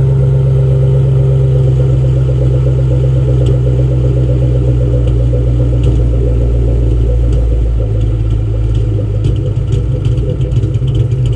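Ford Mustang Mach 1's 4.6-litre DOHC V8 running steadily with a misfire, popping; it almost sounds cammed. The owner traced the misfire to failing front O2 sensors, after new plugs and coil packs had not cured it.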